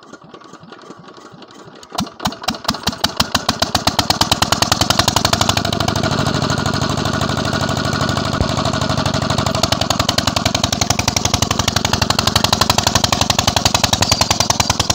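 16 hp KAM diesel 'Peter' engine starting. It catches about two seconds in, its fast, even exhaust beat building over the next couple of seconds, then runs steadily and loud.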